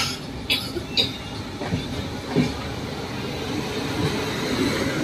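Passenger train running, its coach rattling and clattering steadily, with a few sharp clicks in the first second and a couple of low knocks a little later.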